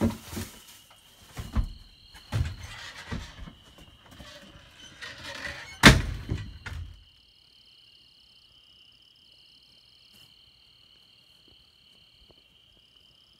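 Knocks and handling noise, with one loud thunk about six seconds in as a glass storm door is opened. After that a steady, high-pitched nighttime chorus of calling animals goes on.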